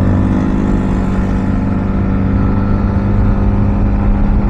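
Yamaha MT-15 motorcycle engine running at a steady pitch while riding, with no rise or fall in revs.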